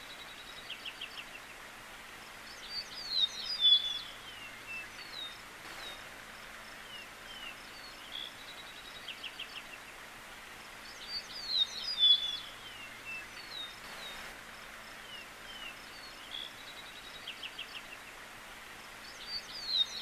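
Small songbirds chirping over a faint steady outdoor hiss. A short, louder burst of song comes back about every eight seconds, with quieter runs of chirps in between.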